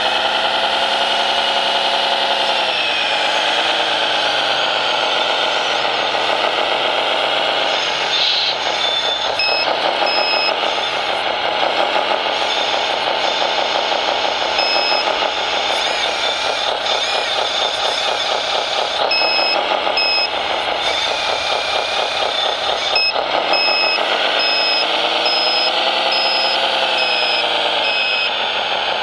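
Engine sound of a radio-controlled model truck or construction machine, running steadily and rising and falling in pitch as it is driven. Several runs of short, evenly spaced reversing beeps come in after about a third of the way through.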